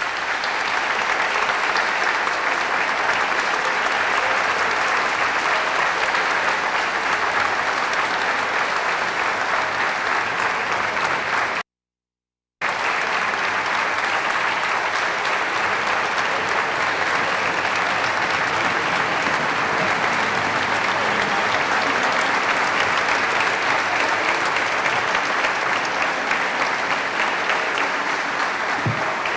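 Audience applauding steadily. The sound drops out completely for about a second roughly twelve seconds in, then the applause carries on.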